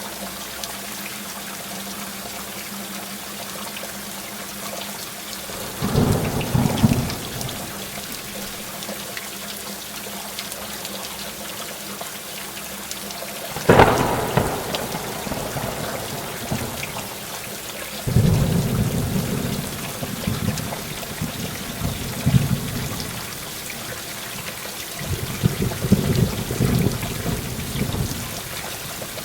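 Heavy rain falling steadily, with thunder. A low rumble comes about six seconds in, and a sharp crack near the middle, the loudest moment, trails off into rumbling. Longer rumbles follow in the second half.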